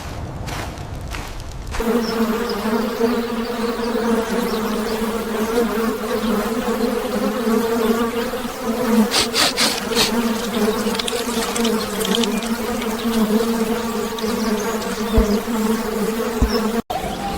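Swarm of bees buzzing steadily and loudly, starting about two seconds in, with a few sharp clicks partway through.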